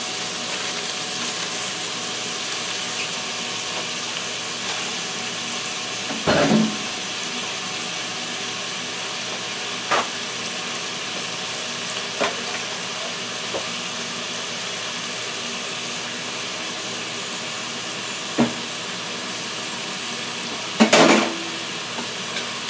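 Frozen baby carrots and sweet red pepper strips sizzling steadily in melted butter in a frying pan. A few brief knocks sound over it, the loudest about six seconds in and near the end.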